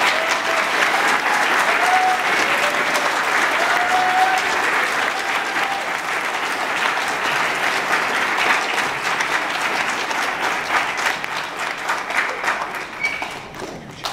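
A congregation applauding steadily in welcome, the clapping thinning out toward the end.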